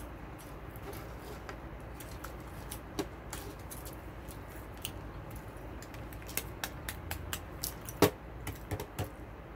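Close-up chewing of chicken nuggets, with many small sharp mouth clicks and crackles, and light taps as a plastic sauce cup is handled on the table; a sharp knock about eight seconds in is the loudest sound.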